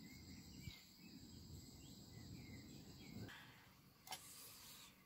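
Near silence: faint outdoor ambience with a soft low rumble and a few faint chirps. The rumble stops about three seconds in, and a brief knock follows about a second later.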